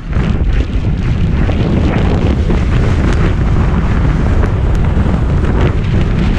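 Heavy wind rumble buffeting the microphone of a camera on an inflatable tube towed fast across a lake, mixed with water rushing and spraying against the tube. Loud and unbroken.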